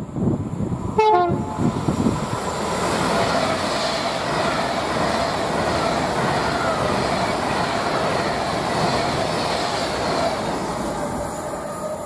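A train passing at speed, a steady loud rush of wheels and air lasting about ten seconds and easing off near the end. About a second in, a brief horn call drops in pitch in short steps.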